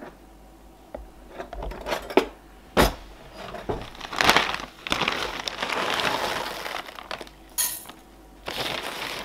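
White beeswax pellets poured from a plastic bag into a stainless steel saucepan, rattling against the pot's bottom for a few seconds, after a few sharp knocks and rustles of the bag.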